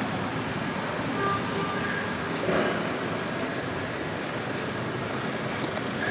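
City street traffic: the steady running of passing motor vehicles, with a brief louder swell about two and a half seconds in.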